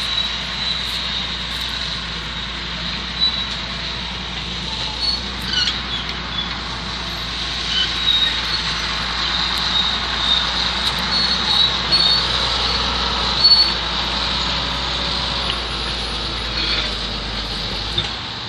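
Engine of a heavy earth-moving machine running steadily, a low rumble under a constant hum, with short high chirps over it.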